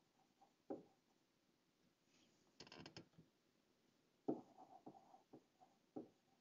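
Faint taps and light scratching of a stylus on a pen tablet while a word is handwritten, with a brief soft hiss about two and a half seconds in.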